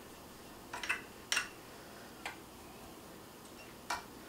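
A handful of light, sharp taps and clinks, irregularly spaced, as a metal part of a grain flour mill is knocked over a bowl to shake out the last of the flour.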